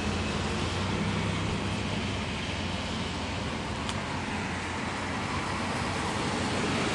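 Steady low rumble of road traffic, with a single faint click about four seconds in.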